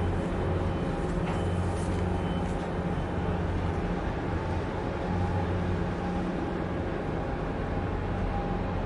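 Low, steady drone of ship diesel engines from the harbour tug and the passing container ship, with a deep hum that swells and eases slightly over a few seconds.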